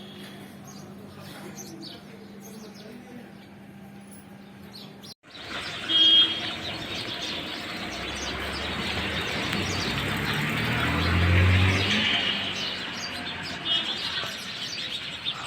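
Birds chirping over a steady low hum. After an abrupt cut about five seconds in, a rushing noise with a low rumble swells to its loudest about eleven seconds in and fades, with a few bird chirps over it.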